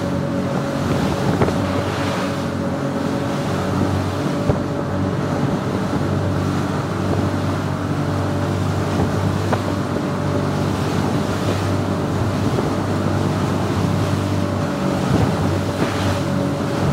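Motorboat engine running steadily at cruising speed, its pitch unchanging, with wind buffeting the microphone as the boat moves across open water.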